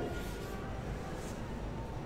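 Steady low room hum, with a few faint scratches of a marker pen on a whiteboard in the first half second.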